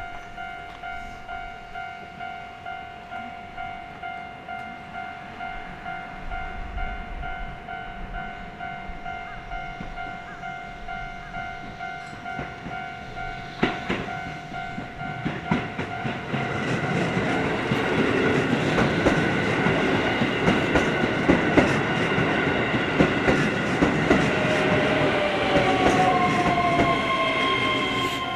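Japanese level-crossing warning bell ringing its even, repeating 'kan-kan' alarm. About fifteen seconds in, a train runs through the crossing, its rumble and clicking wheels over the rail joints rising over the bell, which keeps ringing, with a falling whine near the end.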